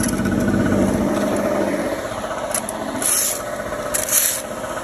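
Plastic leaf rake's tines scraping and dragging over asphalt as dry leaves are pulled into a pile, a steady rasping with two sharper scrapes near the end.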